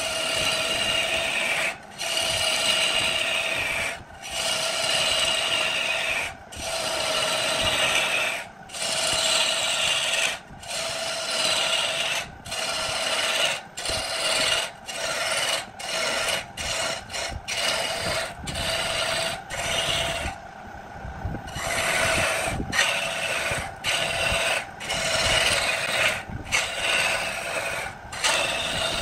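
A turning tool cutting into a spinning wood blank on a lathe, a rasping scrape of wood shavings coming off in strokes of one to two seconds with short breaks as the tool lifts away. The strokes get shorter and quicker midway, with a longer pause about twenty seconds in. A steady tone runs underneath.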